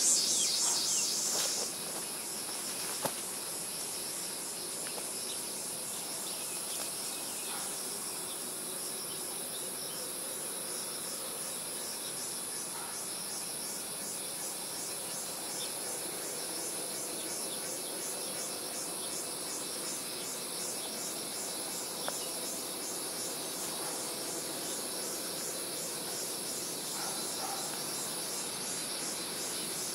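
Insects calling in a steady high-pitched chorus, with a fast pulsing trill beneath a continuous buzz; a louder pulsing call stops about a second and a half in.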